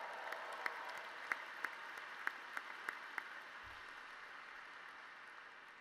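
Large audience applauding, with a few sharp, close claps standing out in the first three seconds; the applause slowly fades toward the end.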